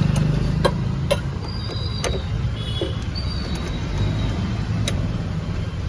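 Hand-tool work on a scooter: scattered sharp clicks and knocks of metal tools and parts being handled, with a few short high squeaks, over a steady low hum.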